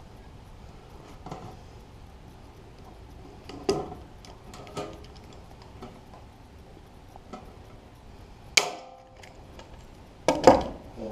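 Sheet-metal toolbox parts being handled: scattered light clicks and taps, a sharp metallic clank that rings on briefly about two-thirds of the way in, and two louder clanks near the end.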